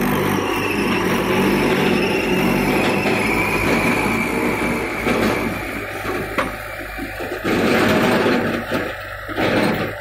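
Mahindra tractor's diesel engine running under load as it tows a trailer full of earth, with a louder stretch near the end.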